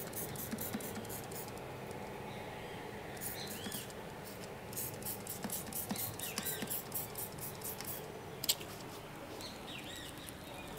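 Plastic trigger spray bottle squeezed quickly again and again, giving short hissing squirts of soapy water, several a second, in runs with pauses between. One sharp click comes near the end.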